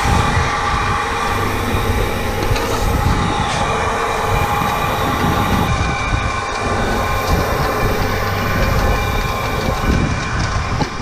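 Steady mechanical running of grain-loading machinery, an auger conveying oats into a trailer, with a low hum that rises in the middle and fades out again.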